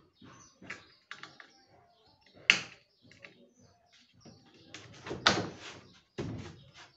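Wooden cedrinho ceiling boards knocking and scraping as a board is handled and slid into place in a wooden frame. There is a sharp knock about two and a half seconds in, and a louder, longer knock with a scrape about five seconds in.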